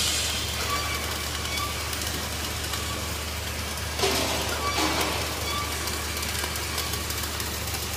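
Flux-cored arc welding: the arc crackles and hisses steadily over a low steady hum, with two brief louder noises about halfway through.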